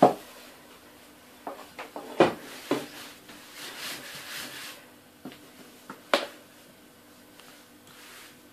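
Rolling pin rolling out thin börek dough on a board: a few sharp wooden knocks and a soft swish of the pin passing over the dough.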